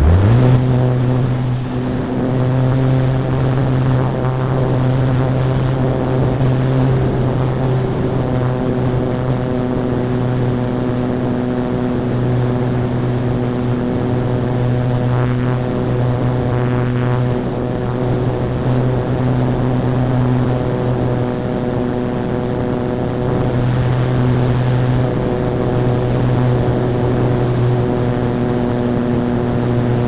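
Motor and propeller of a model ASW 28 glider, heard from an on-board camera. It spins up quickly at the start, then runs loud and at a steady pitch under full power through the launch and climb.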